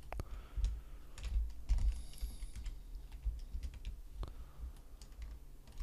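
Computer keyboard keys clicking: a few scattered, irregular taps.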